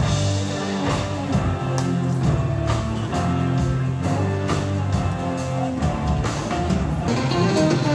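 Live orchestra with a rhythm section playing: strings over a stepping bass line and a steady drum beat.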